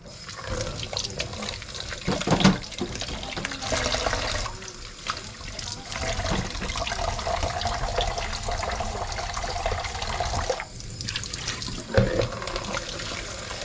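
Kitchen tap running into a stainless steel sink and into a plastic food container held under the stream, with two brief knocks, one a couple of seconds in and one near the end.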